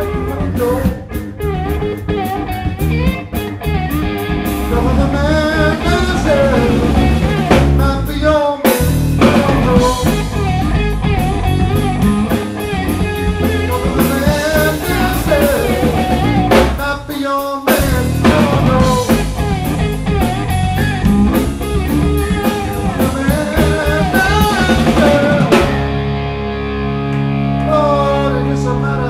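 Live blues-rock trio of electric guitar, bass and drums playing, with the electric guitar taking a lead line of wavering, bent notes. Near the end the cymbals drop out and held notes ring on.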